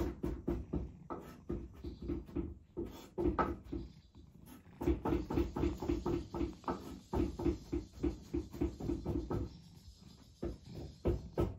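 Domestic cat purring close to the microphone, a rhythmic pulsing that runs on with a few short breaks for breath.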